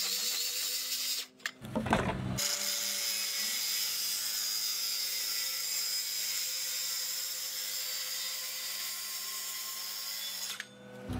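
DeWalt cordless circular saw running through plywood, a steady motor whine with a hiss of cutting. It breaks off briefly about a second in, starts again and runs evenly until it stops shortly before the end.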